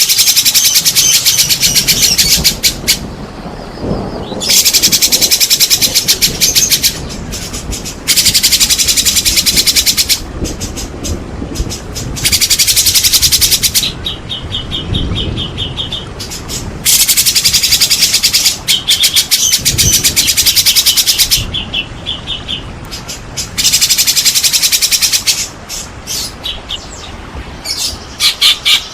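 White-rumped shama in full song: loud bursts about two seconds long of very fast, rapid-fire chattering notes, separated by short runs of clear whistled notes.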